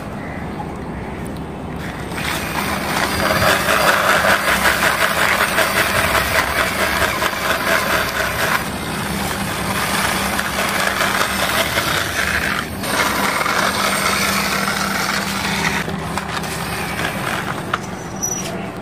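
Plastic toy police jeep pushed by hand along a concrete wall ledge: its wheels roll with a continuous fast-ticking whirr, loudest a few seconds in, briefly breaking off about two-thirds of the way through.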